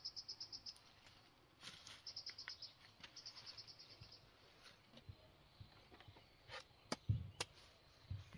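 Insect chirping in fast, even pulsed trills, three short runs in the first half. Near the end come a few sharp knocks and dull thumps, the loudest sounds here.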